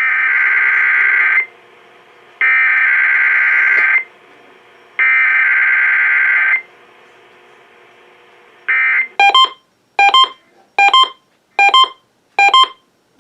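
Emergency Alert System data bursts: three screeching digital header bursts of about a second and a half each, a second apart. They are followed, from about nine seconds in, by the two-tone attention signal sounding as short beeps repeating a little faster than once a second. This is the coded start of a broadcast EAS test.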